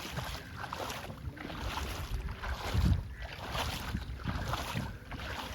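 Water splashing and sloshing in irregular bursts as people wade and fish in a shallow, muddy flooded field.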